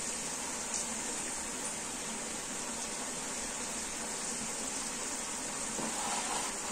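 Hot oil sizzling steadily as green peas deep-fry in a pot.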